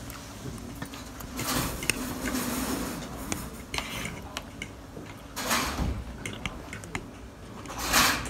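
Metal fork clicking and scraping against a plate as meatballs and pasta are speared, in many small scattered clinks with a few longer scrapes.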